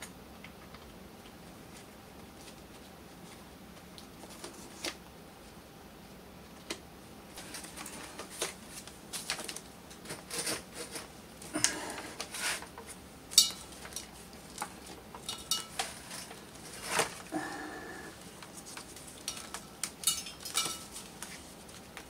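Clicks, knocks and light clatter of a Veteran Sherman electric unicycle's battery packs, wiring and plastic shell being handled and fitted together. It is mostly quiet for the first third, then irregular clicks and knocks follow, with one sharper knock a little past the middle.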